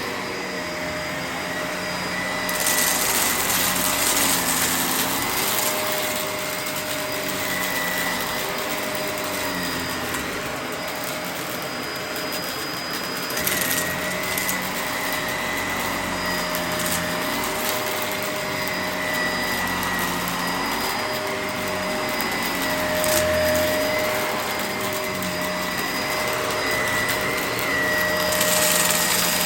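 Vacuum cleaner running steadily. Its motor hum wavers a little in pitch as the nozzle is worked over the floor. A louder rush of air comes a few seconds in and again near the end.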